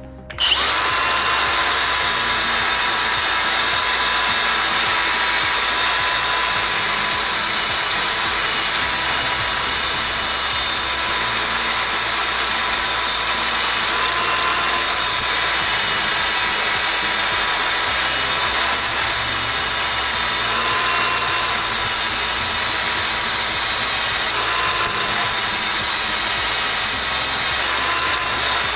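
Angle grinder with a flap disc switched on and running steadily, with a steady motor whine over the grinding hiss of a steel M8 bolt held against the disc to grind its thread off.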